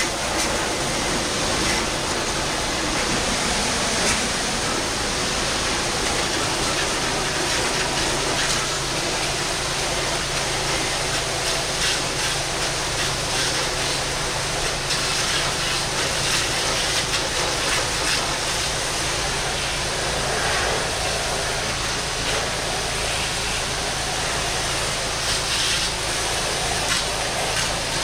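Pressure washer's high-pressure water jet spraying steadily against pool-cage screens to blast off leaves, a continuous hiss of water with a steady low hum underneath.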